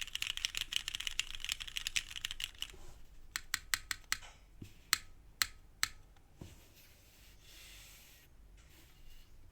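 Sagrada gasket-mount mechanical keyboard with Cherry Black linear switches and GMK keycaps being typed on. It starts with a fast run of keystrokes for almost three seconds, then several single key presses about half a second apart, then the typing stops.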